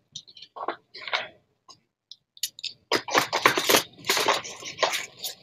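Handling noise as metal eyeglass frames are set down and the next ones picked up: a few light clicks and rustles, then a dense run of rustling and clicking over the last couple of seconds.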